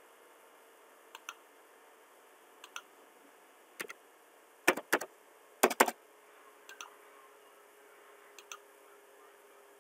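Computer mouse and keyboard clicking: a few separate clicks, many in pairs, and two louder short runs of keystrokes around the middle.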